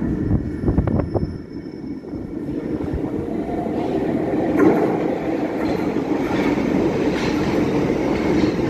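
London Underground Central line train (1992 stock) coming out of the tunnel and pulling into the platform: a rush of running noise that builds steadily louder from about two seconds in, after a few sharp knocks near the start.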